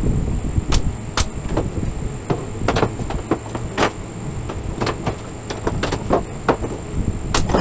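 Pneumatic nail gun firing into pine boards, a dozen or so sharp shots at uneven intervals, over a steady low rumble.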